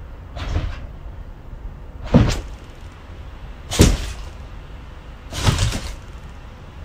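A dog giving four short, sharp noises, evenly spaced about a second and a half apart.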